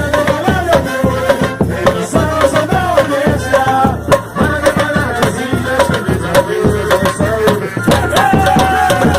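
Batuku music: a voice sings a melody, holding long notes, over a steady, fast beat of percussion.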